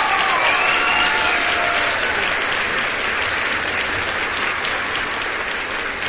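A crowd applauding and cheering: dense steady clapping, with a few voices whooping in the first second.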